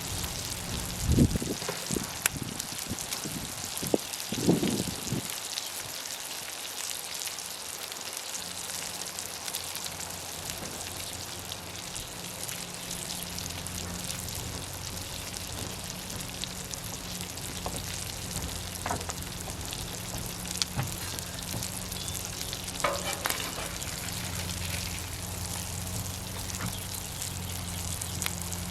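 Hot dogs and cheese sizzling on a Blackstone flat-top griddle, with a few knocks and scrapes of a metal spatula in the first five seconds and a couple more later.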